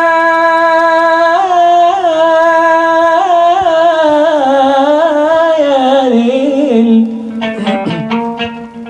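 Man singing a slow, free Arabic vocal line: a long held note, then ornamented runs that wind downward. His voice stops about seven seconds in, leaving quieter plucked guitar notes.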